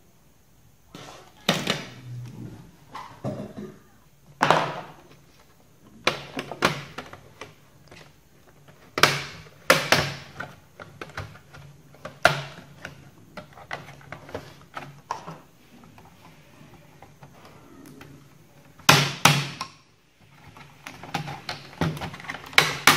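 Irregular sharp plastic clicks and knocks from a laptop and small tools being handled and set down on a desk.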